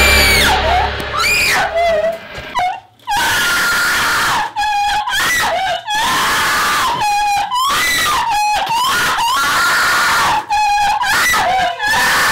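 A woman screaming again and again, long high shrieks broken by short gaps for breath.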